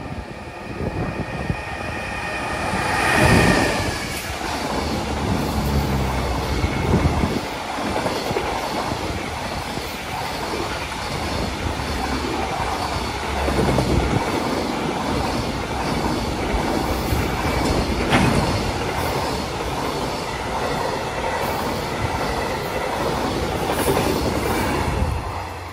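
JR Freight EF210 electric locomotive running through the station with a high whine as it approaches, loudest about three seconds in. A long string of container wagons follows, rumbling past with rhythmic wheel clatter over the rail joints, and the noise falls away suddenly just before the end as the last wagon clears.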